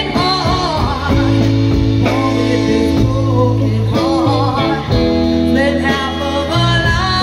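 Live band playing a song: a woman singing into a microphone over electric guitar, electric bass and drums.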